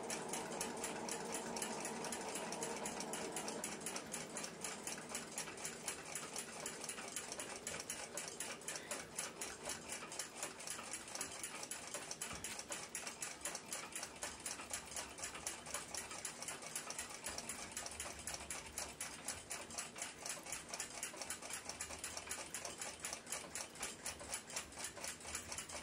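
Soviet submarine ship's clock movement ticking rapidly and evenly, its lever escapement beating with the freshly cleaned and oiled movement running.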